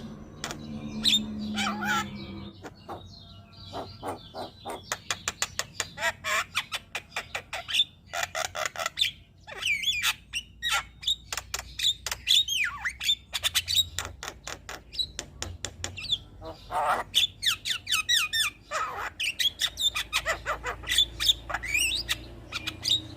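Javan myna singing a varied, chattering song: fast runs of clicks mixed with harsh squawks and gliding whistled notes.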